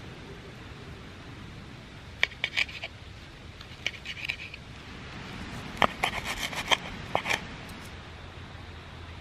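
A metal knife and fork scraping and clicking against a wooden bowl while cutting a sausage, in three short spells of taps and scrapes, the last the loudest.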